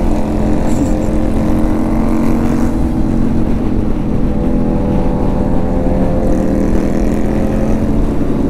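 Motorcycle engine running at a steady cruising speed on the road, with wind rushing over the microphone.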